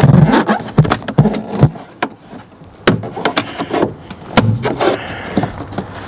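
Black plastic lower trim panel at the base of a Ford Transit's seatbelt pillar being pulled and pried at by hand, giving a series of sharp plastic clicks and knocks, most of them in the first two seconds.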